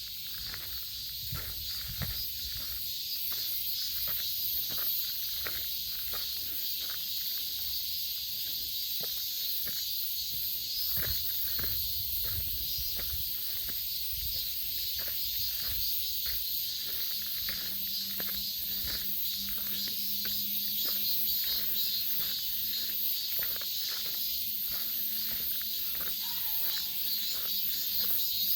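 Footsteps on a forest path, about two steps a second, over a steady high-pitched insect chorus.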